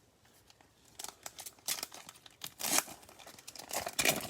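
Foil wrapper of a Prizm baseball card pack being torn open and crinkled: a run of sharp rips and rustles starting about a second in.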